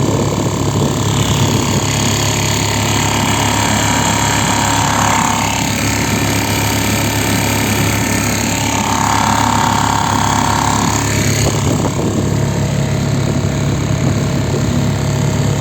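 Small Mercury 3.5 hp outboard motor running steadily under way, pushing the inflatable boat along at a constant throttle.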